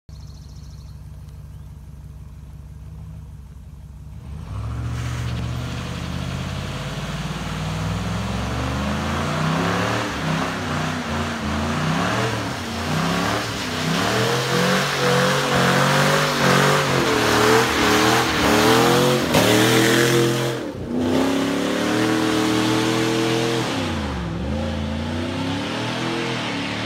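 2009 Chevrolet Silverado's 5.3-litre V8 pickup engine under hard acceleration. It is low and steady for about four seconds, then gets much louder, and the exhaust note climbs and falls as it runs through the gears, dipping sharply about two-thirds of the way through and again a few seconds later. It is still running strongly at the end as the truck drives away.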